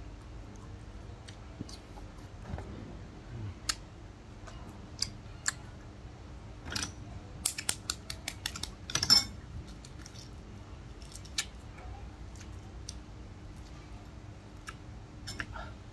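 Shell of a boiled egg cracking and crackling as it is peeled by hand: scattered sharp clicks, with a quick run of them about halfway through.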